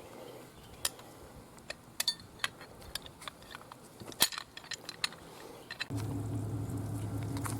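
Scattered light metallic clicks and clinks of rope-rigging hardware being handled as a line is run through. About six seconds in, a steady low drone starts suddenly and keeps going.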